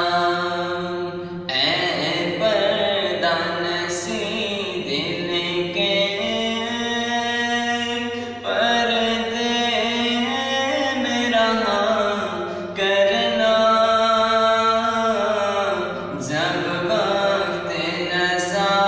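A young man's solo voice singing a naat, holding long drawn-out notes with brief breaks between phrases.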